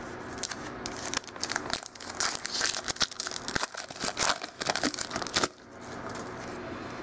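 Foil wrapper of a Panini Contenders football card pack being torn open and crinkled by hand: a dense crackling and tearing that stops abruptly about five and a half seconds in.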